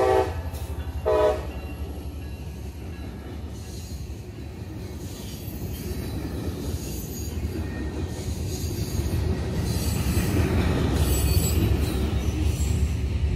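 Freight locomotive's horn cutting off, then one short horn blast about a second in. The train's covered hopper cars then roll past with a steady low rumble and wheel clatter, with a thin high wheel squeal near the end.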